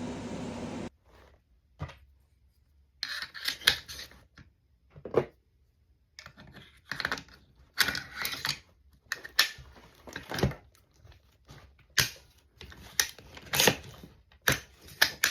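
A steady rushing hiss cuts off about a second in, followed by irregular clicks, knocks and short scrapes of AR-15 metal parts being handled during cleaning.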